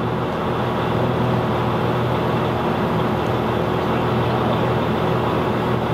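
Tracked excavator's diesel engine running steadily, a continuous low drone with a thin steady tone above it.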